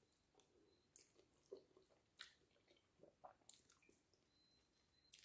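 Near silence with faint chewing: a few soft, scattered mouth clicks from a person chewing a mouthful of pasta.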